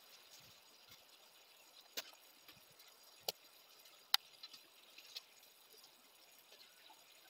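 Quiet outdoor background with four or five faint, sharp clicks and crackles spread a second or so apart, from black plastic mulch film being spread and pressed down over a garden bed.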